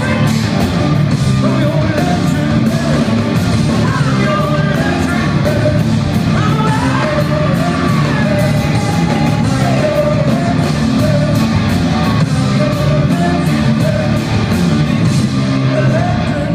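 Blues-rock band playing live, with a male singer over loud guitars, bass and a steady drum beat, recorded on a phone from the audience in a concert hall.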